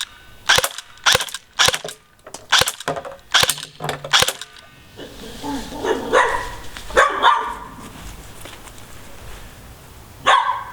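Cyma CM.123 electric airsoft pistol firing single shots, about eight sharp snaps at roughly two a second over the first four and a half seconds. A dog barks several times around six to seven seconds in.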